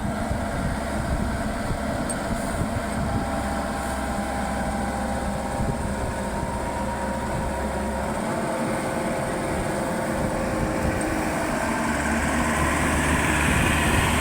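Maxxi Bimo 102L combine harvester running steadily, with its engine and harvesting machinery droning. The deepest part of the rumble fades about eight seconds in and comes back about four seconds later.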